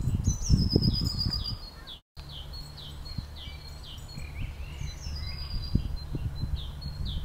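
Garden songbirds singing: a short falling chirp repeated about twice a second, with a higher trill near the start, over a low rumble of noise. The sound drops out briefly about two seconds in.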